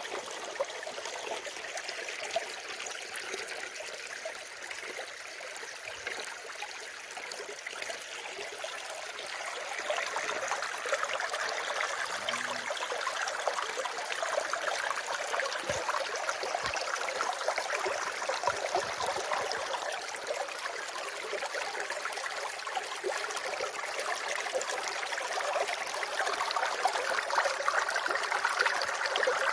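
Water flowing steadily, an even rushing trickle that gets somewhat louder about ten seconds in and again near the end.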